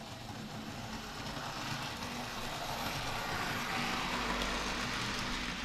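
A model railway train runs along the track toward the camera. Its wheels on the rails make a steady rolling rattle that grows louder over the last couple of seconds as it comes close.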